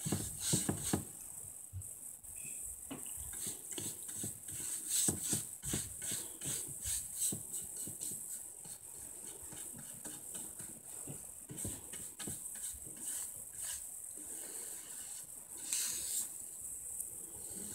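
Wide bristle paintbrush swishing back and forth across a wooden board as amber shellac is brushed on, in quick irregular strokes, roughly two a second.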